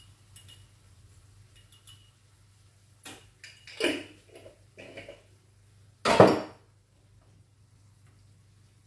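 Kitchen handling sounds: a small glass jar of chili flakes and utensils knocking and clinking against a bowl. There are a few light knocks about three to five seconds in, then one louder clunk about six seconds in.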